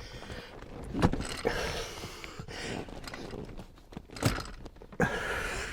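A car front seat being worked into place inside the cabin: irregular scraping and rustling with two sharp knocks, one about a second in and a louder one near the end.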